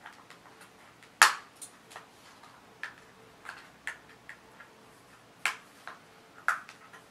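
Scissors snipping through plastic-and-card product packaging: a string of sharp, irregular snips and clicks, the loudest about a second in.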